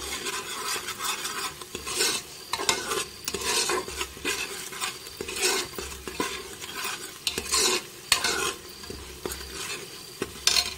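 Metal spoon stirring and scraping a spice paste frying in oil in an aluminium pressure cooker. Irregular scraping strokes come about once a second over a steady sizzle.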